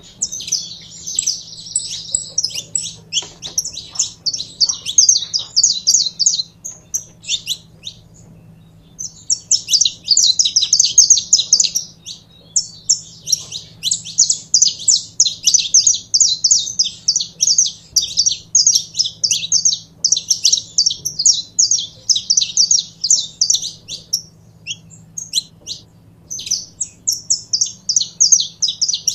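Saffron finch singing: long, fast runs of high chirping notes, with a pause of about two seconds some seven seconds in.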